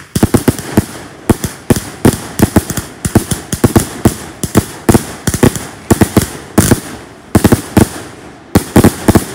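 Salute cake firing a rapid barrage of loud, sharp bangs, several a second, each shot a tail climbing into the sky and ending in a single report.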